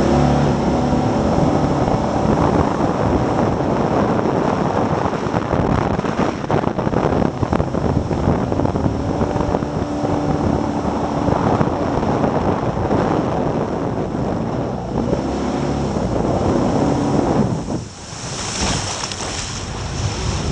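Jet boat powered by a fuel-injected 383 Chevy V8 running at high speed, the engine note rising and falling under a heavy rush of water and wind on the microphone. A little before the end the engine drops off briefly, followed by a burst of hissing spray.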